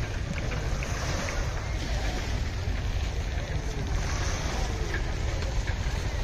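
Wind rumbling steadily on the microphone over outdoor hubbub, with faint distant voices.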